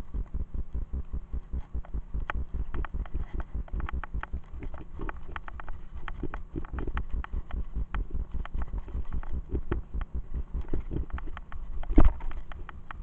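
Mountain bike clattering over a dirt trail: a dense run of rattles and knocks over a low rumble. One hard knock comes near the end.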